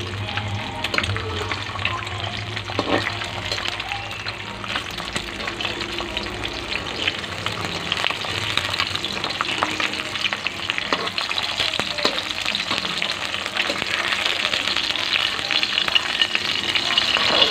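An egg frying in hot oil in a metal pan: a steady sizzle full of small crackles and pops, growing louder toward the end.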